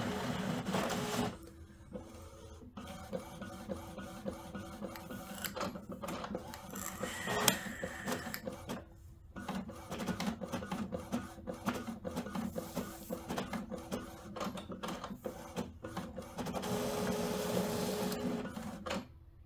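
Epson EcoTank ET-8550 inkjet printer printing a nozzle check pattern. Its motors hum steadily for the first second and again near the end, with a run of clicks and ticks from the paper feed and print head in between.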